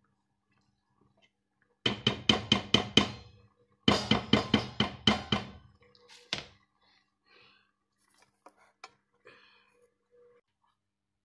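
A stirring utensil rapped quickly against the rim of a stainless steel pot, two runs of about seven and eight ringing knocks at roughly five a second, then one last knock, shaking thick gel-like soap paste off it. A few faint taps follow.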